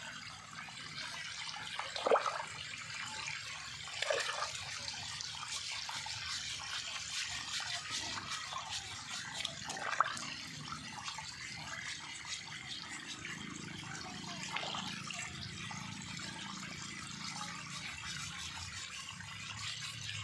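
Water sloshing and splashing in a metal basin as a pig's head is scrubbed with a scouring pad and turned by hand, with a few sharper splashes along the way.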